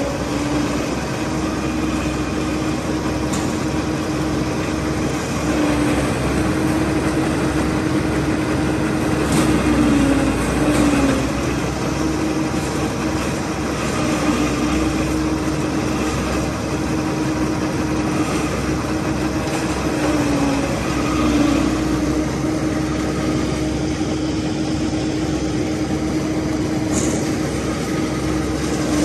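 Engine-driven forage chopper-blowers running steadily, cutting green fodder stalks and blowing the chopped silage out through their spouts. A steady hum runs through the machine noise, and its pitch wavers briefly twice, about ten and twenty seconds in.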